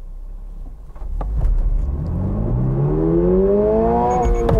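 2022 Subaru BRZ's 2.4-litre flat-four heard from inside the cabin, launching from a standstill for a 0-60 run. The engine note jumps about a second in, then climbs steadily in pitch through first gear and drops sharply near the end at the shift into second. Just before the shift comes a few short high beeps from the rev buzzer.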